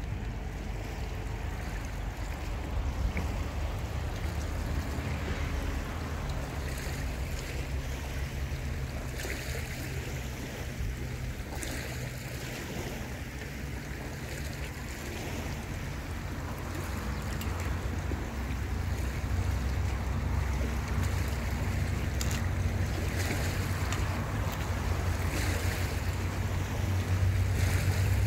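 Wind buffeting the microphone: a low rumble that grows stronger toward the end, with a few faint clicks.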